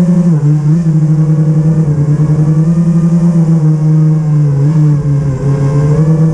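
5-inch FPV quadcopter on a TBS Source One frame: its four motors and propellers buzz as heard from the onboard camera. The pitch drops briefly just after the start and again about five seconds in, then climbs back as the throttle is eased and reapplied.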